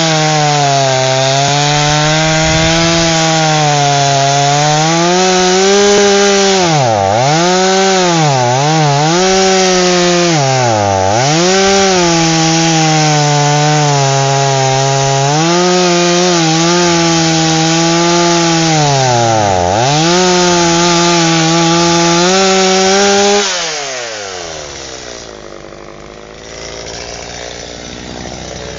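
Two-stroke chainsaw running at full throttle while cutting into an aspen trunk. Its engine pitch dips sharply several times as the chain bogs down in the cut. Near the end the throttle is released and the engine winds down to idle.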